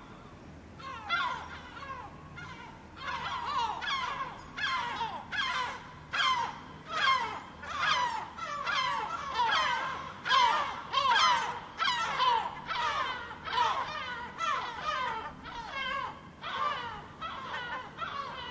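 Gulls calling in a long series of harsh, downward-sliding calls, about one to two a second, that start about a second in after a brief lull.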